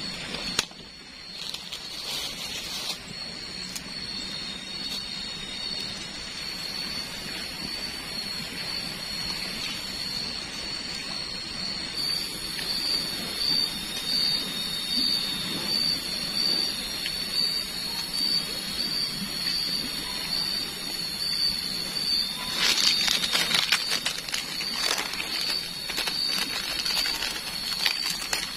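Steady rain hiss with a continuous, slightly wavering high-pitched whine. A run of sharp clicks and taps comes in toward the end.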